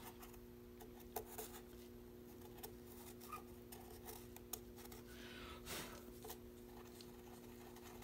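Faint scratching and light clicks of a pointed wooden stick scraping wet grout out of the lines of a glass mosaic, over a steady low hum.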